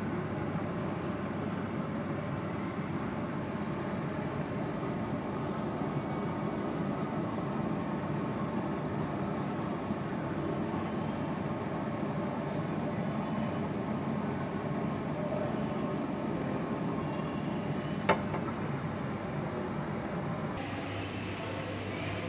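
Steady indoor background hubbub with faint distant voices, and one sharp click about eighteen seconds in.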